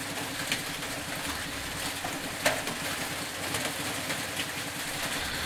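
Steady background noise: a low rumble and hiss, with a few faint clicks, the sharpest about two and a half seconds in.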